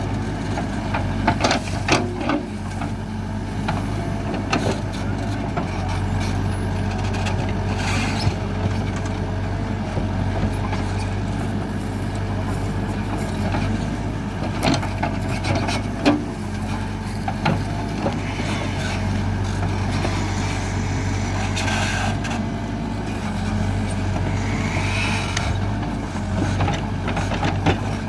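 Hidromek 102B backhoe loader's diesel engine running steadily under working load, with scattered sharp knocks and clanks from the digging work and a few short hissing sounds.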